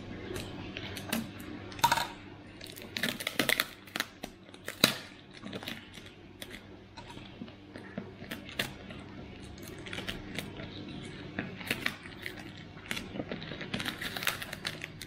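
Scissors snipping through packing tape wrapped around a plastic jar, with the tape crinkling as it is cut and peeled back: an irregular series of short, sharp snips and crackles.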